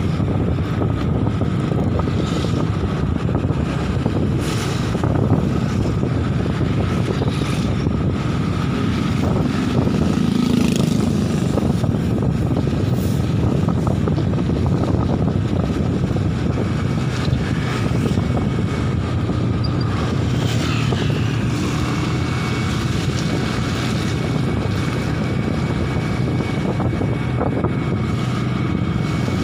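Motor scooter's engine running steadily while riding along, with a constant low rumble of engine and road noise and a thin steady whine over it.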